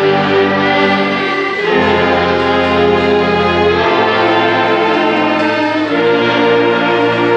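An orchestra playing slow, sustained chords, brass and strings together, the harmony moving to a new chord every couple of seconds.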